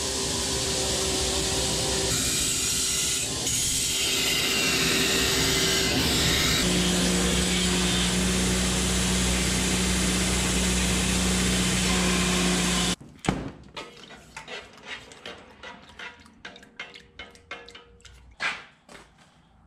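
Belt grinder running with a steel knife blade held to the belt, a loud, steady grinding hiss with a motor hum underneath. It cuts off abruptly about two-thirds in, and a run of short clinks and knocks follows as the blade is worked in a steaming steel tank.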